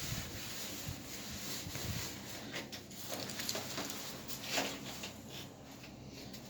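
Faint handling noise: scattered light rustles and clicks, the clearest about two and a half and four and a half seconds in, over a low steady background hum.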